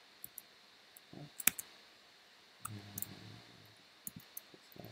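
Scattered, faint clicks of computer keyboard keys and a mouse while code is typed and edited, the sharpest click about one and a half seconds in.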